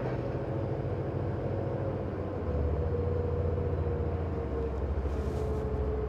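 Twin Volvo Penta IPS500 diesel engines running under way with a steady low drone, one engine tone slowly dropping in pitch as the throttles are brought back; the low rumble grows stronger about two and a half seconds in.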